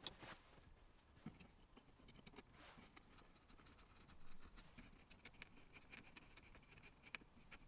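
Faint scraping and light clicks of wooden slide blocks being pushed by hand along the steel guide rods of a small XY slide jig, with a thin squeak in the second half.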